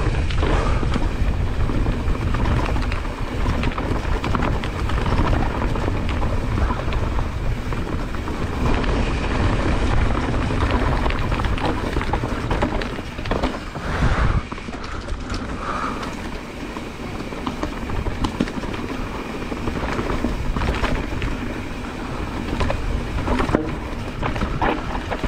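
Mountain bike riding down a dirt trail: tyres rolling over the ground and the bike rattling over bumps, with wind rumbling on the microphone. It gets a little quieter from about halfway.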